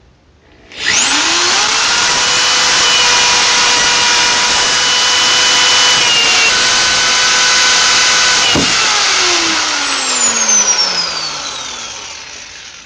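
An electric power tool's motor spins up quickly about a second in, runs steadily at full speed, then is switched off and winds down slowly with a falling whine near the end.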